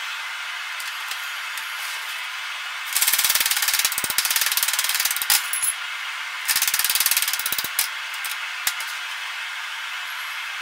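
A red-hot steel bar being bent with tongs around a round steel mandrel, chattering and scraping against the mandrel and the steel table in two bursts of rapid rattling, over a steady hiss.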